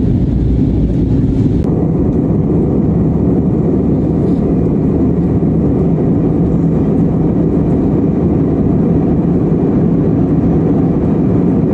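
Steady low rumble of a vehicle in motion, heard from inside it, with no distinct events; the higher sounds drop away abruptly just under two seconds in.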